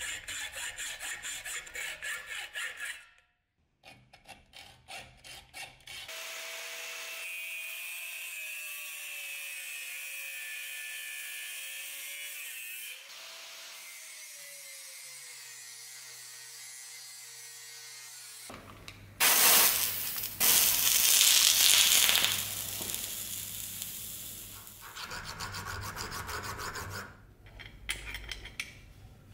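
Hand hacksaw sawing a threaded steel rod held in a vise in quick, even strokes; then an angle grinder whining with a wavering pitch, cutting into the rod loudly from about two-thirds of the way in; near the end, a hand file rasping back and forth in the cut slot.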